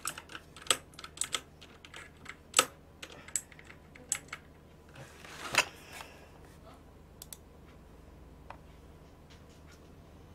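Computer keyboard typing and clicking in quick, irregular runs for the first few seconds, then a brief rustle and a few scattered clicks.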